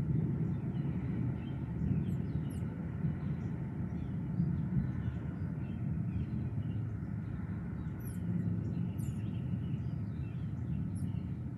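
Birds chirping now and then over a steady low outdoor rumble.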